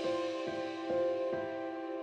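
Slow, soft background music: sustained notes with a new note struck about twice a second.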